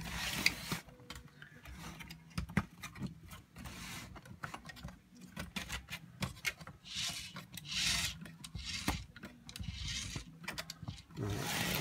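3D-printed PLA plastic parts rubbing, scraping and clicking against one another as they are handled and pushed into place, with a few longer scrapes in the second half.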